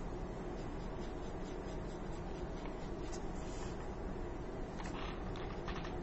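Colored pencil scratching in short strokes over painted corrugated cardboard, over a steady low background hum.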